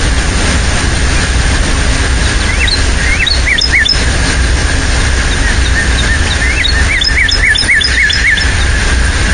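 A songbird sings two short runs of quick rising chirps, a few seconds apart, over a steady low rumble.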